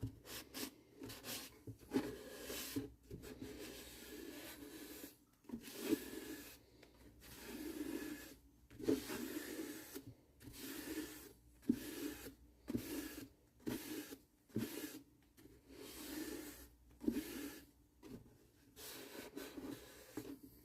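Repeated wiping strokes rubbing sanding sealer onto a wooden ukulele body, about one stroke a second, with an occasional light tap.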